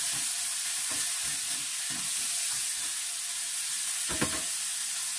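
Ground chicken and green beans sizzling in a nonstick frying pan just after soy sauce has gone in, with a plastic spoon stirring and scraping through them. The sizzle is a steady hiss.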